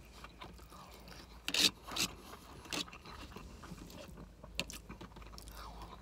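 Close-up eating sounds: chewing a mouthful of scrambled eggs, with a few light clicks and scrapes of plastic cutlery against a plastic food tray.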